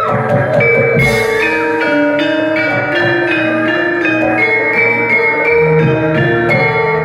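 Javanese gamelan ensemble playing: struck metallophones sound a stepping melody of short ringing notes over held lower tones, with one sharp stroke about a second in.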